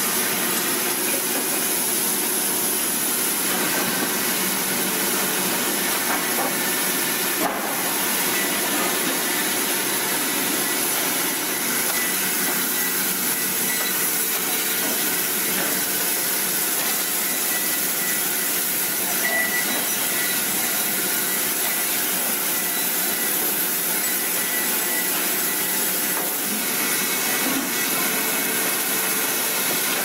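Automatic sawmill line running, its horizontal circular saw blade slicing boards off cants: a steady, dense machine noise with a hiss, and a faint click about seven seconds in.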